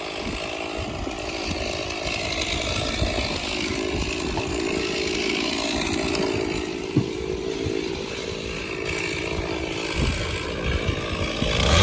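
Gas chainsaw running steadily under load, cutting through elm log sections.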